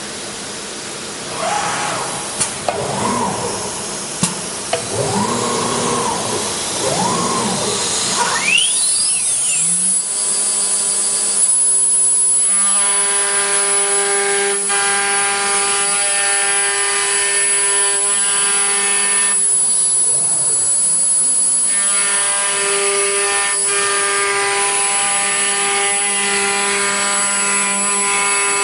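CNC wood router with a 9 kW HSD spindle: at first motor whines rise and fall with a few sharp clicks. Then the spindle spins up with a climbing whine and settles into a steady high whine, with a buzzing set of tones as the bit cuts grooves in the board; the cutting tones drop out for about two seconds midway.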